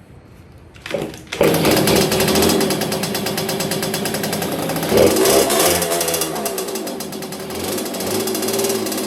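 Yamaha Banshee 350's two-stroke twin engine starting: a brief first attempt about a second in, then it catches and runs with a fast, steady beat. It is revved briefly about five seconds in, then drops back to a lower idle.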